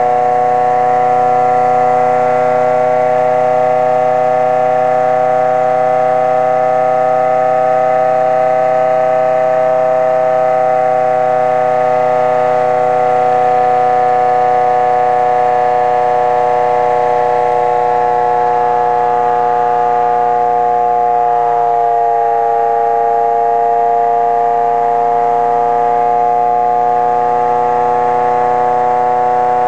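Homemade pulse motor running at low speed, giving a steady pitched whine with many overtones. Its pitch drifts slowly and sags a little about two-thirds of the way through, then holds.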